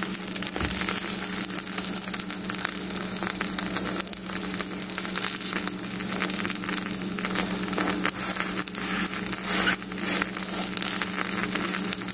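Egg-and-flour crepe batter sizzling and crackling in hot oil in a frying pan, over a steady low hum.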